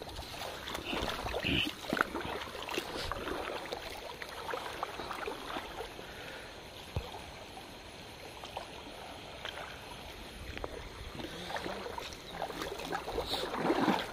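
Shallow stream water splashing and sloshing as people wade through it, with scattered small clicks and splashes, growing busier near the end.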